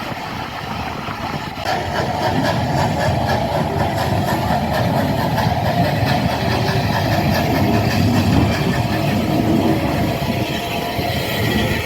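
Steam train hauled by Battle of Britain class locomotive 34070 Manston running, a steady rumble that grows louder about one and a half seconds in.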